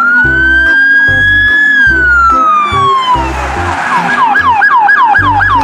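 Police siren: one slow wail rising, holding and falling, then switching about four seconds in to a fast yelp of about four sweeps a second, over background music with a steady beat.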